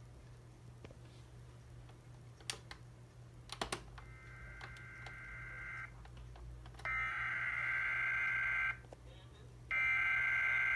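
Emergency Alert System SAME header over radio: bursts of warbling digital data tones, each about two seconds long, with about a second's gap between them. The first burst is fainter and the third runs on past the end. These bursts are the coded header that opens an EAS test message, and two sharp clicks come shortly before them.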